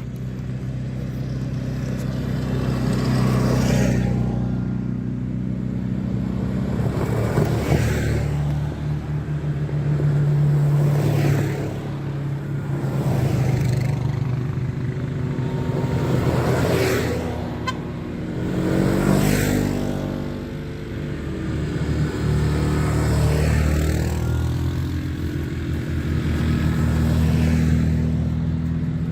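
CFMOTO ZForce 950 side-by-side's V-twin engine running steadily while driving. The sound swells and fades every three or four seconds.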